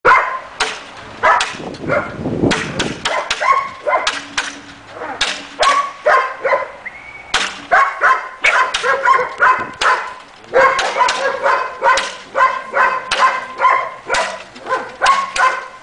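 German Shepherd puppies barking: short, high yaps in quick runs, with a brief lull about six seconds in.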